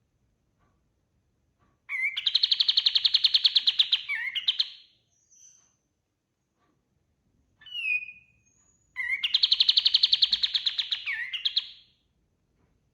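A kapas tembak singing: two long, fast trills of rapidly repeated notes, each lasting about three seconds, with a few short whistled notes between them.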